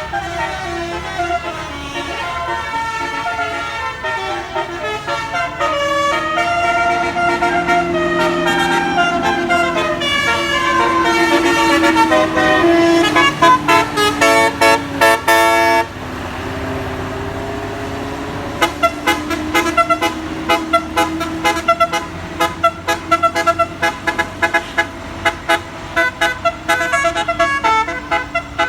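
Indonesian bus 'telolet basuri' multi-tone horn playing a melody, its notes stepping up and down, over the bus's engine. About halfway through the notes turn into rapid stuttering toots and break off suddenly. Soon after come quick, repeated staccato notes.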